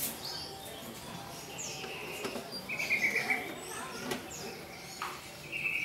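Small birds chirping, with two rapid trills, one about halfway through and one near the end. A few sharp clicks come from a screwdriver working at the metal fan grille of an air-conditioner outdoor unit.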